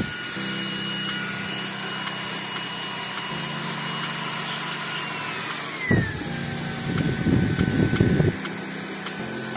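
AGARO Supreme cordless stick vacuum cleaner's motor running with a steady high whine that glides down in pitch about five and a half seconds in. Bursts of rushing noise follow for a couple of seconds.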